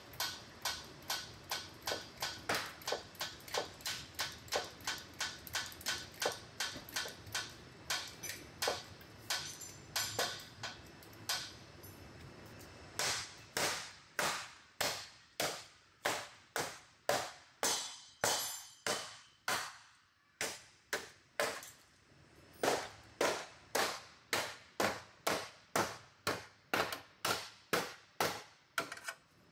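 Sledgehammer blows on the crumpled steel front inner fender of a collision-damaged Toyota Prado, a steady run of metal-on-metal strikes at about two a second as the panel is beaten back into shape.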